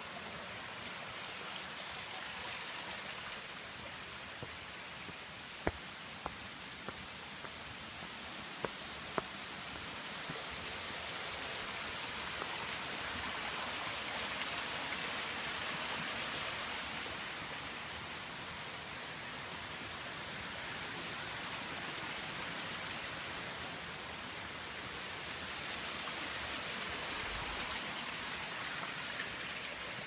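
Steady rushing hiss of water, swelling louder through the middle and again near the end. A few sharp clicks come in the first third.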